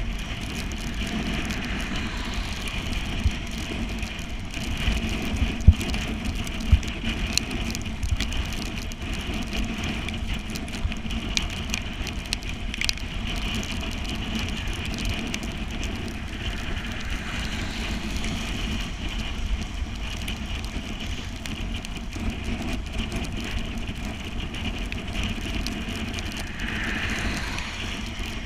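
Steady riding noise of a bicycle on a wet road in the rain, with scattered short knocks.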